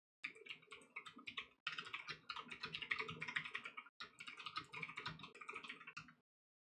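Computer keyboard typing: a fast run of key clicks lasting about six seconds, with two brief pauses, as a search term is typed in.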